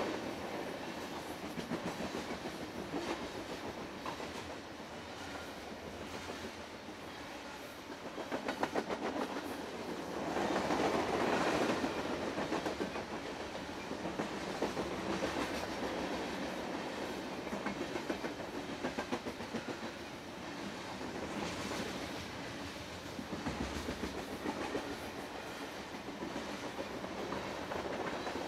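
Freight train of covered hoppers and tank cars rolling past at a good clip: a steady rumble of steel wheels on rail with rapid clickety-clack over the rail joints. It swells louder for a few seconds about ten seconds in.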